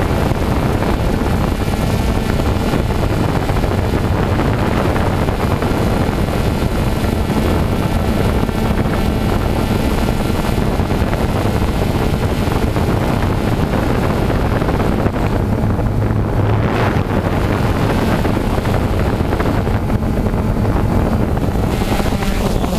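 Quadcopter drone's motors and propellers running with a steady, loud hum, heard through the camera mounted on the drone itself, with wind noise on the microphone.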